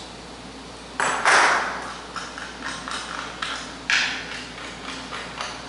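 Tools and mounting hardware being handled: two sharp knocks, about a second in and near the four-second mark, each fading quickly, with light taps and clicks between them.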